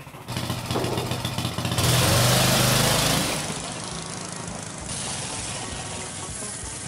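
Small vintage go-kart engines running as the karts pull away, loudest about two seconds in, then settling to a steadier, quieter drone.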